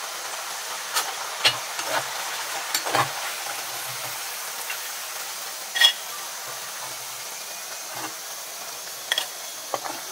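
Battered potato fries deep-frying in hot oil, a steady sizzle, with a metal skimmer and spoon clinking and knocking against the pot about nine times, loudest about six seconds in.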